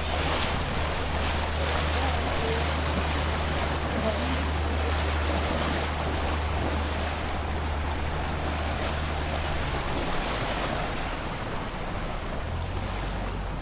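A boat under way on a river: a steady rush of wind and water noise over a low motor hum, the hum easing off about ten seconds in.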